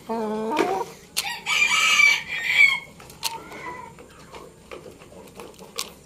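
A rooster gives a short low call, then crows once, a hoarse crow of about a second and a half that turns up at the end. A few sharp clicks follow.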